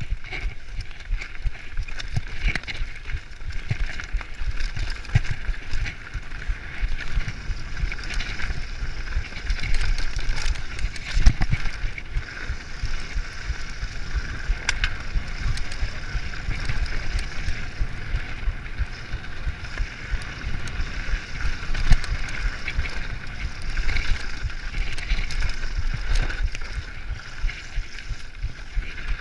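Mountain bike descending a rough dirt trail at speed: a steady rumble from the tyres and vibration, with frequent rattles and knocks as the bike bumps over rocks and roots.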